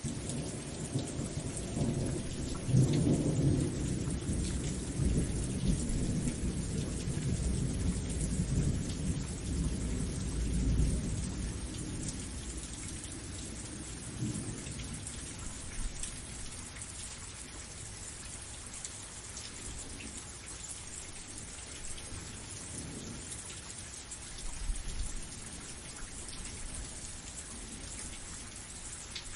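Steady rain falling, with a long roll of thunder that swells in the first few seconds and dies away after about ten seconds. A shorter, fainter rumble of thunder comes near the end.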